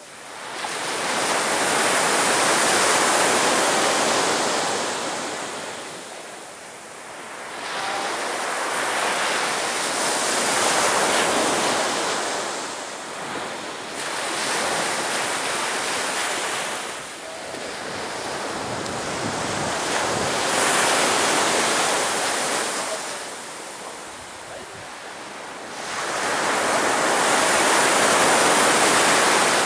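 Sea surf breaking on the shore: the rush of each wave swells up and falls away again, about five times, one every five to six seconds.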